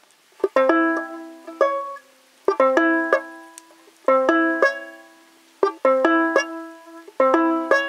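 Banjo being picked: short phrases of plucked, ringing notes about every one and a half seconds, each dying away into a brief pause before the next.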